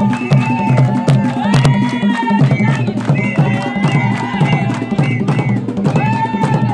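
Traditional Mozambican dance music: drums beating a fast, steady rhythm, with women's voices singing over it.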